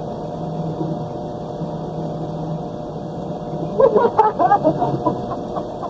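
A steady hum with several held tones, and a voice speaking briefly about two-thirds of the way in.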